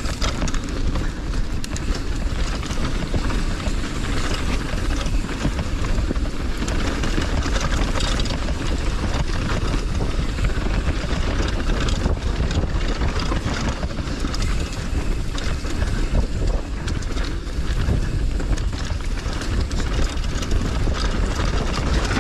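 Hardtail mountain bike riding fast down a dirt downhill trail: wind rushing over the helmet or action-camera microphone and a low tyre rumble, with a constant run of rattling clicks and knocks from the bike.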